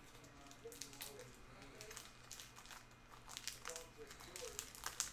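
Plastic trading-card pack wrappers crinkling and cards being handled, a string of short sharp crackles with the loudest near the end.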